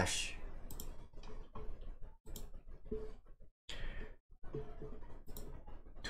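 Computer mouse clicking several times, with a soft breath partway through.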